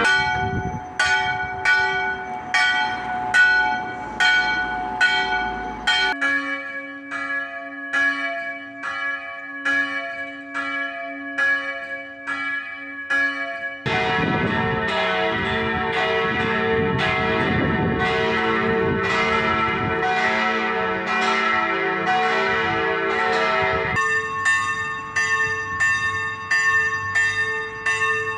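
Church bells ringing in evenly spaced strikes, a little more than one a second, each stroke ringing on. The bells' pitch and tone change abruptly about six, fourteen and twenty-four seconds in.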